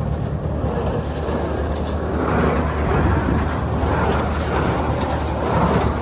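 New Holland Haycruiser self-propelled baler running with its baler mechanism engaged: a steady engine hum under a repeating clatter about once a second.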